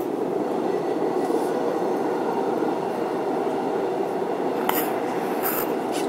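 Subway train running at speed through a tunnel, heard from inside the front car: a steady rumble of wheels and running gear. Two brief sharp clicks come about a second apart near the end.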